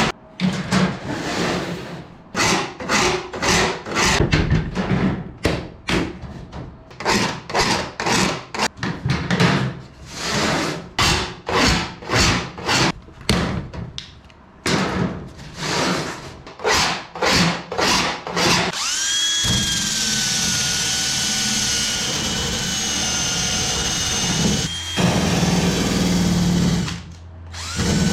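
Hand file rasping on the aluminium wing spar in repeated strokes, about two a second, while deburring lightening holes. About two-thirds of the way through, a Dremel rotary tool starts with a steady high whine. It stops briefly near the end and starts again.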